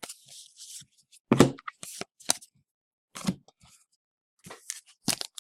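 Trading cards being handled: a few short, scattered snaps and rustles of card stock with quiet gaps between them.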